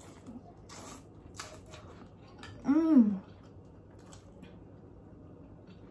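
A person eating birria ramen: a few short clicking and slurping eating noises, and about three seconds in a single hummed sound of enjoyment that rises and falls in pitch.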